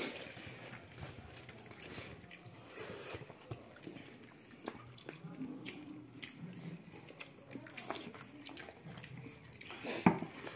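Eating by hand from a banana leaf: fingers squishing and mixing rice and curry, with scattered small wet clicks, and a sharper click about ten seconds in as a mouthful is taken.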